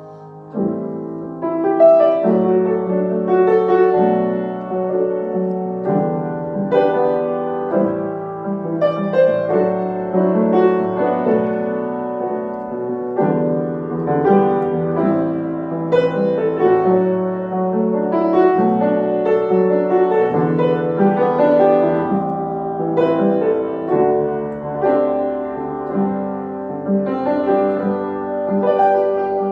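Solo piano playing a gentle melody over sustained chords, swelling in about two seconds in after a quiet opening.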